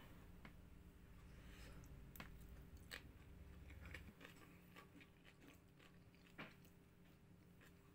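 Faint eating sounds: scattered short clicks of a metal spoon against a ceramic bowl, and chewing, over a faint steady hum.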